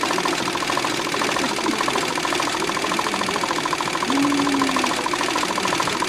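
Commercial embroidery machine stitching a logo onto a baseball cap at full speed, a fast, even mechanical chatter of the needle stroke.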